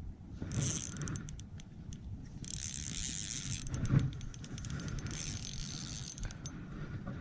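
Fishing reel being cranked in three short spells, with a rapid fine clicking, over a low rumble of wind.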